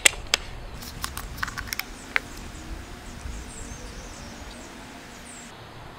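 A few sharp clicks and taps from handling a plastic cooking-oil bottle in the first couple of seconds, then oil pouring quietly into a plastic wine glass.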